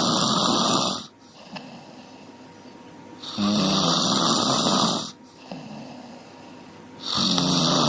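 A sleeping dog snoring: a loud snore about every three and a half seconds, each lasting one and a half to two seconds and starting with a brief buzzing tone, with quiet breathing in between. One snore ends about a second in, a full one falls in the middle, and another begins near the end.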